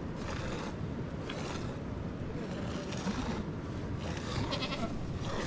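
Goats bleating a few times, the clearest call about four seconds in, over a steady low background noise.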